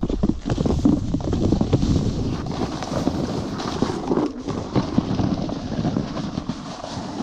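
Wind buffeting the microphone, mixed with the scraping hiss of a snowboard sliding over snow, briefly quieter about four seconds in.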